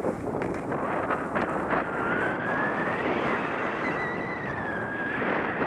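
Rushing wind on the microphone of a skier moving downhill, with skis hissing and scraping over packed snow. A few sharp scrapes come in the first two seconds, and a thin whistle rises and falls through the middle.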